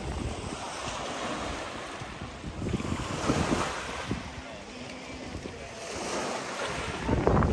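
Wind gusting on the microphone as a low rumble, over the washing noise of lake water lapping at the shore, swelling briefly a few times.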